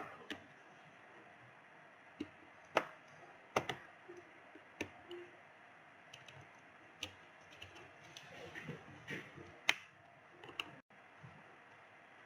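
Irregular sharp plastic clicks and taps, with a short stretch of softer scuffing about two thirds of the way through, as the bottom cover of a Lenovo V15 laptop is worked loose from its case.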